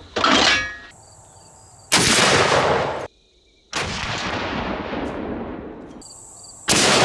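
A .50 BMG rifle shot from a Serbu BFG-50A, a loud blast about two seconds in that echoes across the range before it cuts off short. The same report comes twice more, weaker a little later and loud again near the end, as the shot is repeated from other angles.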